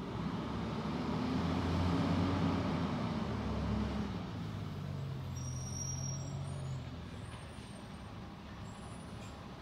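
A distant garbage truck's diesel engine running, its note rising and falling over the first few seconds, then settling to a steady lower pitch and fading somewhat. A brief faint high squeal sounds about five and a half seconds in.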